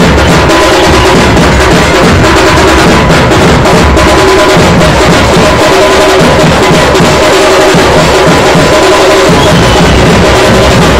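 Dhol-tasha drumming, loud and continuous: deep dhol beats under sharp, rapid tasha strokes.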